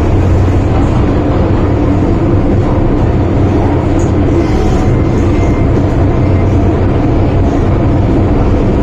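An MTR Tsuen Wan line M-Train running through a tunnel, heard from inside the car: a loud, even running rumble with a strong low hum.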